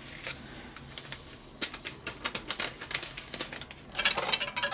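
A paper sachet of vanilla sugar being handled and tapped as it is emptied into a pot: a run of small sharp clicks and crinkles, with a denser rustle near the end.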